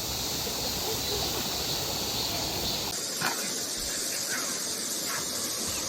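Steady rushing hiss of a mountain valley stream, with faint distant voices of people playing in the water in the second half.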